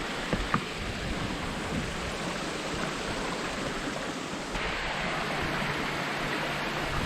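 Water rushing steadily down a steep stream of small cascading waterfalls over rock, with a couple of short knocks about half a second in. The rushing grows brighter about two-thirds of the way through.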